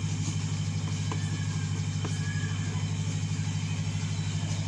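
A steady low machine hum with a fast, even pulse runs throughout, like a motor or engine running. A few faint taps of chalk on a chalkboard sound over it as words are written.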